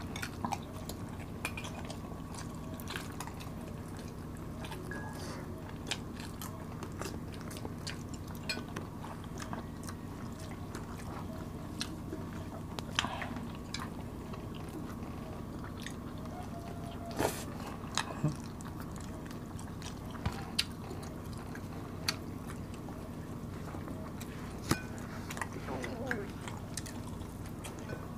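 Two people eating rice and roast chicken: chewing and biting, with scattered sharp clicks and taps of a spoon and fork against the plates, over a steady low hum.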